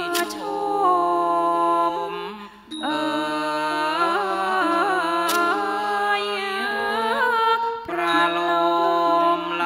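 Thai classical dance-drama music: a long melismatic sung line on held, wavering notes, broken by two short pauses, over a steady low held note from the accompaniment.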